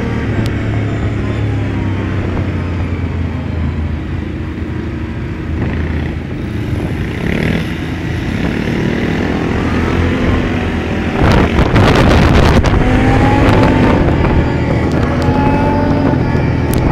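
Quad bike engines running as a group rides in convoy, the nearest engine's pitch rising and falling with the throttle. About eleven seconds in, a loud buffeting noise on the microphone lasts a second or two.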